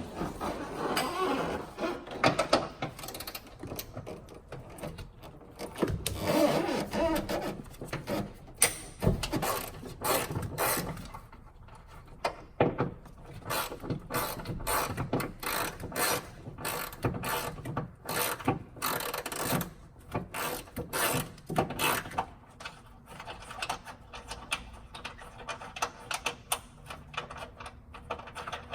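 Runs of quick ratchet-wrench clicks and the clatter of hand tools and metal parts as bolts are undone on a Jeep's front end. The clicks come thickest and fastest through the middle of the stretch.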